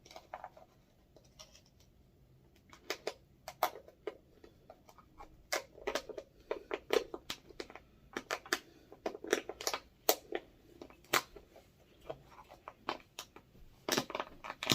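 Irregular clicks and taps as the two halves of a chocolate-filled ornament mould are pushed and fitted together, with repeated tries before it closes.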